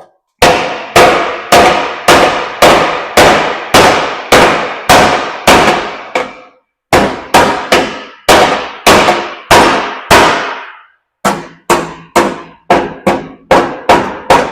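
Hammer beating bent sheet-metal tin work over a steel trailer hitch clamped to the table, straightening it. Steady blows with a metallic ring, about two a second, broken by two short pauses, with quicker blows near the end.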